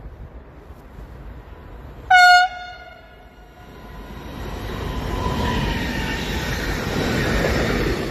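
A shunting locomotive sounds one short, loud horn blast about two seconds in. Then the locomotive and its tank wagons rumble past on the rails, growing louder until the sound cuts off at the end.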